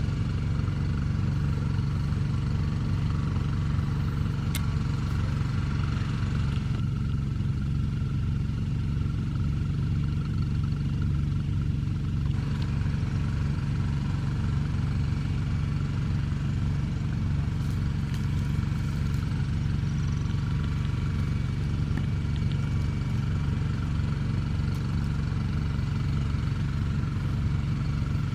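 A small engine running steadily at an even idle, with a regular low pulsing.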